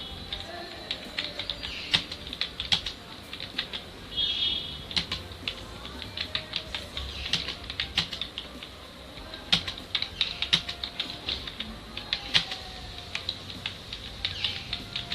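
Computer keyboard keys being typed on steadily at touch-typing speed, irregular quick clicks during a timed typing test, about 41 words a minute.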